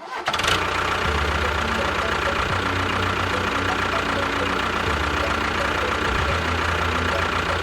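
Small motor running steadily with a constant whine and an uneven low rumble.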